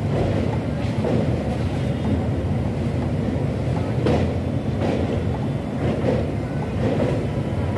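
Janmabhoomi Express passenger coach rolling along the track, heard from its open doorway: a steady rumble of wheels on rails with uneven clacks about once a second as the wheels pass rail joints.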